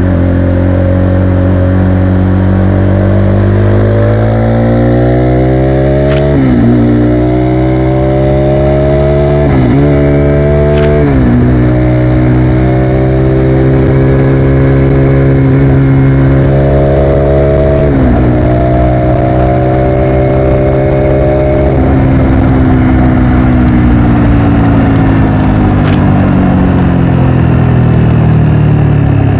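Motorcycle engine pulling through the gears: its pitch climbs and then drops sharply at each upshift, about six, ten, eleven and eighteen seconds in. Near the end it holds steady, then falls away as the bike slows.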